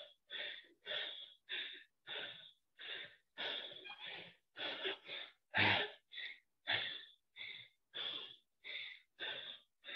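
A man breathing hard from exertion during a set of squats and shoulder presses, in short, even puffs about two a second. It is picked up close on a headset microphone, with each breath cut off cleanly into silence.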